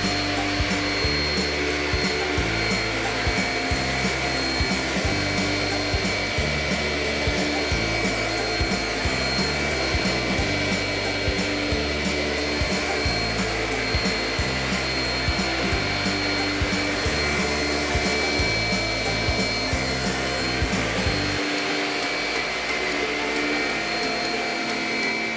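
Shark Rocket Powerhead stick vacuum running steadily on a hard floor, its motor giving a high, even whine, under background music with a steady beat. Near the end the music's bass drops out.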